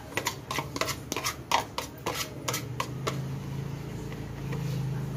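Cooking oil heating in a steel kadai, crackling with a quick run of sharp pops that thins out after about three seconds. A low steady hum comes in about three seconds in.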